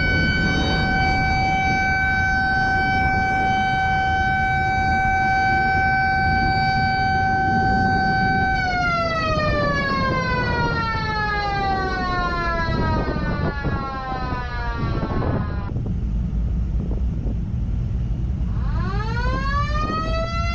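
A siren holds a steady wail, then winds down in pitch and fades out about halfway through. After a short gap it winds back up near the end, over a constant low rumble.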